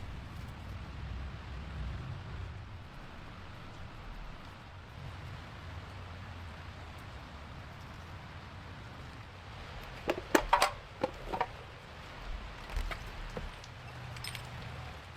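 Sharp, irregular clicks and clinks, bunched together about ten seconds in with a few more after, over a low steady rumble.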